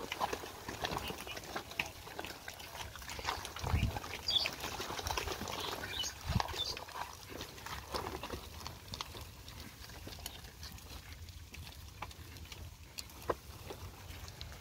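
Water buffalo cart with wooden spoked wheels moving through mud: scattered clicks and knocks from hooves and wheels, with two heavier low thumps about four and six seconds in.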